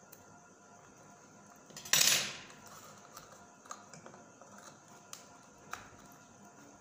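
Handling noise from an LED bulb repair: light clicks and taps of the plastic bulb housing and metal tweezers being handled, with one louder clatter lasting about half a second, about two seconds in.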